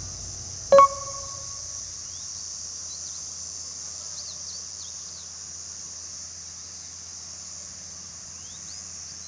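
Open-field ambience: a steady high insect chorus with short bird chirps here and there. About a second in there is a single sharp ding that rings briefly.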